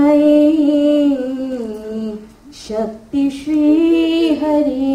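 A single high voice singing mangalashtak wedding verses unaccompanied, holding long drawn-out notes, with a short breath break about two and a half seconds in.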